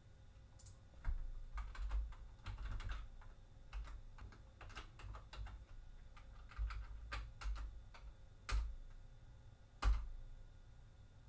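Computer keyboard keys pressed one at a time in an irregular pattern, each press a sharp click with a dull thump, the loudest near the end.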